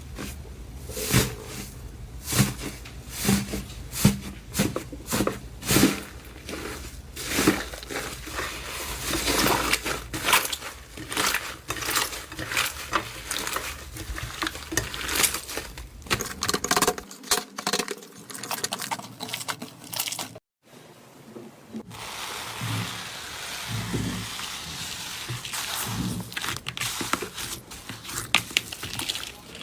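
Slime being squeezed and worked by hand, making sharp wet pops and clicks, about one a second at first and then denser crackling. The sound breaks off briefly about 20 seconds in and resumes as a finer, hissier crackle.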